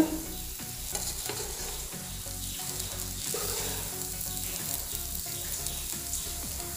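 Wooden spatula stirring and turning just-cooked kabsa rice in a hot pan, scraping through the grains, over a steady sizzle from the pan bottom. The rice has finished cooking and is being fluffed.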